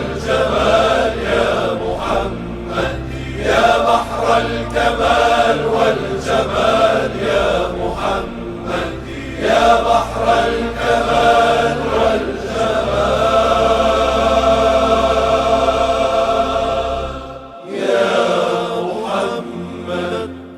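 Voices chanting an Arabic nasheed in praise of the Prophet Muhammad over a steady low drone. The melody runs in phrases, then holds one long note that breaks off about three-quarters of the way through, and a last phrase fades out at the end.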